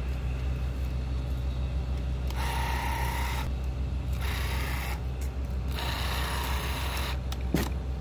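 Marking paint applicator wand spraying white paint in three short hissing bursts, without aerosol propellant, over a steady low engine hum.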